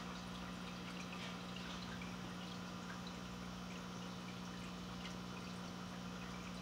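Aquarium water circulation: water trickling and dripping with small bubble ticks, over a steady low hum from the tank's pump.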